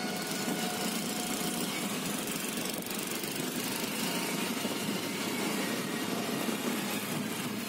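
Motor scooter running steadily at riding speed, heard from the pillion seat, with a constant rush of wind and road noise on the microphone.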